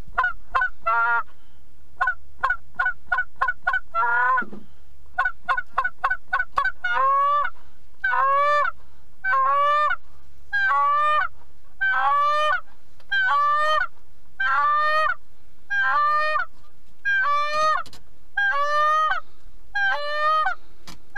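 Canada goose call blown by a hunter to bring geese in. It gives quick runs of short clucks for the first several seconds, then a steady series of longer honks, about one every second and a half.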